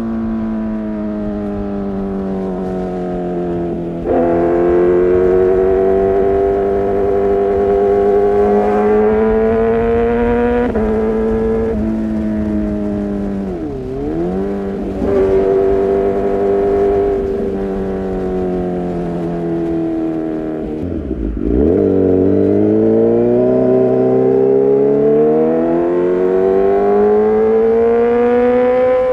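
Kawasaki ZX-6R inline-four through an Arrow Pro-Race exhaust, running loudly with its pitch climbing slowly through long stretches. The pitch drops sharply and swings back up twice, about halfway through and again about two-thirds through, then climbs steadily to the end.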